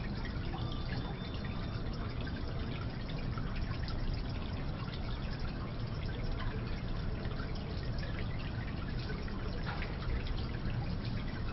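Small decorative indoor fountain: water trickling and splashing steadily into its basin, with many small drips, in lobby room tone.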